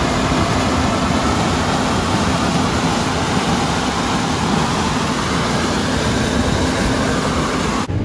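John Deere combine harvesting corn at close range: its engine and threshing machinery run steadily and loudly as the corn head takes in standing stalks.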